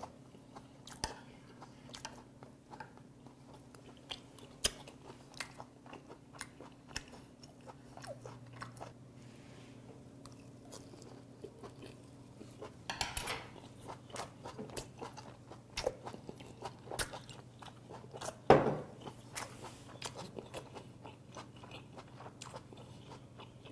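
Close-miked chewing of rubbery sea hare meat: a steady run of small wet clicks and smacks as the chewy flesh is worked between the teeth, with a fresh mouthful taken about halfway through.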